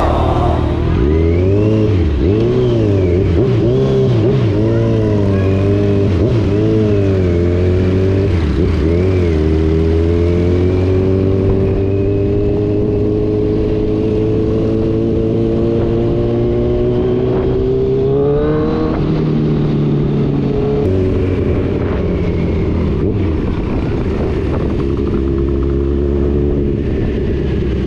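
Motor vehicle engine under way: its revs rise and fall several times, then climb slowly and steadily for several seconds and drop suddenly at a gear change about two-thirds of the way through, then hold steady.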